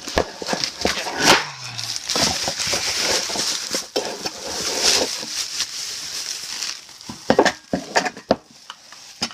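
Plastic and cardboard packaging crinkling and rustling as a boxed elevator button fixture is unwrapped by hand, with scattered knocks and clicks from handling.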